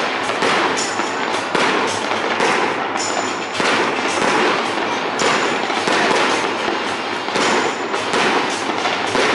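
Fireworks display: a dense, unbroken barrage of aerial shells bursting, bangs and crackling overlapping with no pause.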